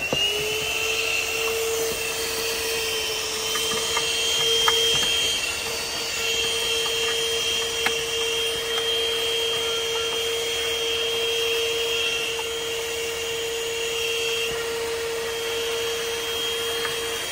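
Vacuum cleaner running steadily as its hose nozzle sucks dust, sand and dirt out of a car's engine air filter housing: the motor comes up to speed at the start, then holds a steady hum with a high whine over a rushing hiss, with a couple of sharp clicks along the way.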